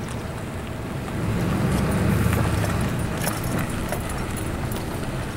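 Low rumble of a vehicle engine running, swelling for a second or two about a second and a half in, with wind on the microphone.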